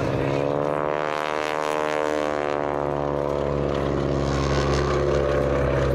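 Boeing Stearman biplane's radial engine and propeller droning through a display pass, the pitch sinking slightly over the first two seconds and then holding steady.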